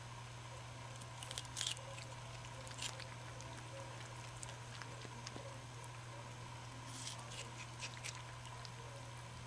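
Ring-tailed lemur biting and chewing a piece of food, wet crunching clicks in short clusters about a second in, near three seconds and again around seven to eight seconds, over a steady low hum.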